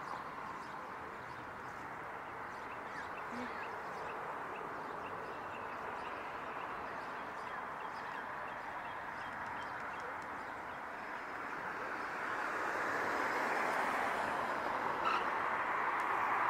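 Steady outdoor background noise that swells about twelve seconds in, with faint, scattered high chirps of small birds.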